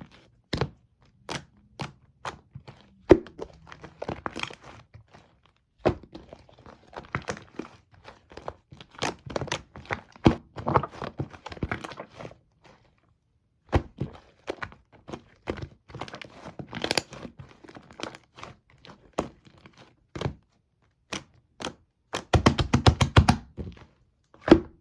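Fluffy shaving-foam slime being squished and poked by hand, giving irregular sticky clicks and pops. There is a brief pause in the middle, and near the end a quick run of rapid squelching presses.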